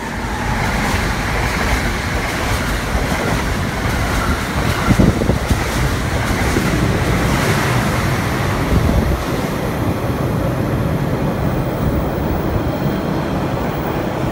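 Amtrak passenger train's stainless-steel coaches rolling past on the rails: a loud, steady rumble of wheels with a few heavier knocks over the track, easing slightly as the train draws away.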